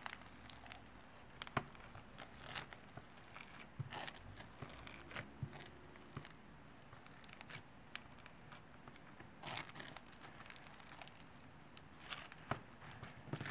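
Slime packed with small foam beads being stretched and squeezed by hand, giving faint, irregular crackles and clicks.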